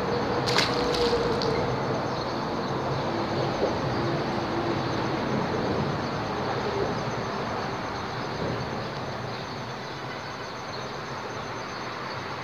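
Traffic rumbling over a highway bridge overhead, a steady noise that eases off somewhat in the second half. A few sharp clicks come about half a second to a second and a half in.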